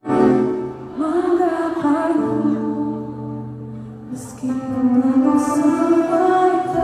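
Live concert performance: singers with band accompaniment, holding long notes.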